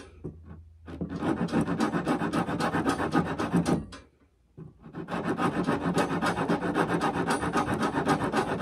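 Wood rasp filing the end of a wooden walking stick in fast back-and-forth strokes, squaring and shaping the end to take a copper tip. There is one short pause about four seconds in.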